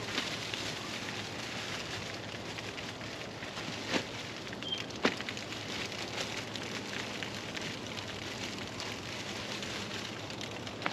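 Potatoes being laid by hand on banana leaves in an imu pit: light knocks and leaf rustles, the clearest about four and five seconds in, over a steady crackly hiss.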